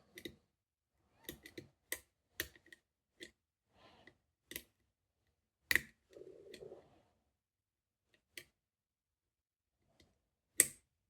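Irregular small metallic clicks of a wire pick and a ground-down key working the levers inside a 7-lever safe lock as it is picked, with a soft rustle of handling about two thirds of the way in and the sharpest click near the end.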